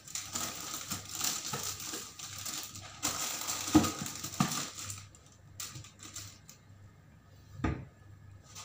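Rustling and crinkling of plastic food packaging being handled at a table, with a few sharp knocks and clicks, the loudest about four seconds in and another near the end; the rustling dies down after about five seconds.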